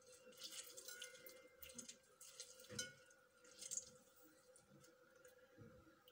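Faint wet squelching and dripping as half a lemon is squeezed by hand over a bowl, with two louder squishes about three seconds in, over a faint steady hum.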